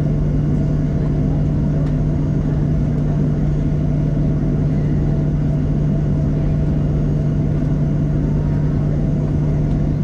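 Airliner cabin noise from a window seat: the engines running at a steady hum, with a constant low drone and rumble that does not change.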